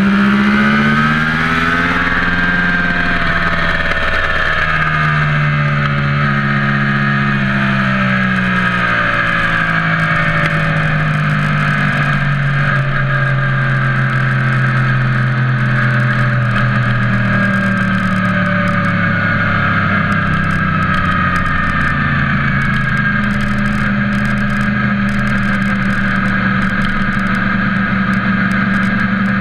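An engine running under way, loud and steady, its pitch climbing and dropping back several times, then holding level for long stretches.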